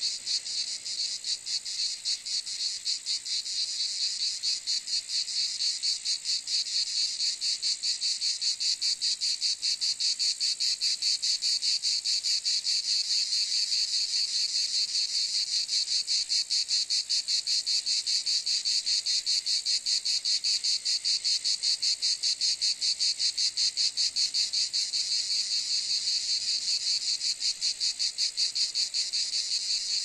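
Cicadas singing: a steady, high-pitched, rapidly pulsing buzz.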